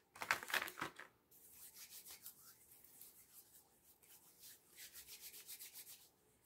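Hands rubbing together to spread hand sanitizer over the palms: soft, quick, rhythmic swishing of skin on skin.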